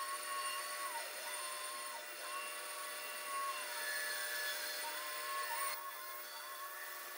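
Pegas scroll band saw running and cutting through a taped wood blank: a steady high whine whose pitch dips briefly a few times.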